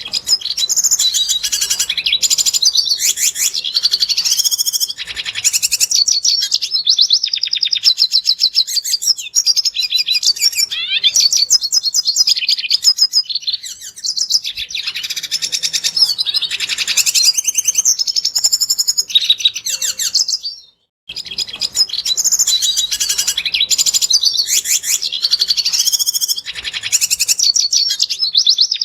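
Red siskin singing: a long, unbroken run of fast, high twittering song with rapid trills. It breaks off for a moment about three quarters of the way through, then resumes.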